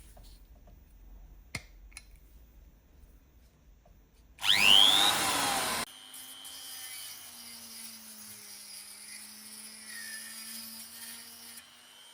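Faint clicks and a sharp tap, then a power tool spins up loudly with a rising whine. After about a second and a half it drops abruptly to a quieter steady hum, which stops shortly before the end.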